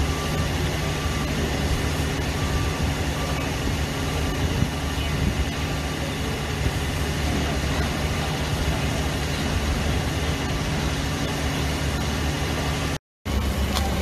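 Fire truck's engine running steadily, driving the pump that feeds the aerial ladder's water stream, as a low hum under a constant hiss. It breaks off about a second before the end, and a louder low rumble follows.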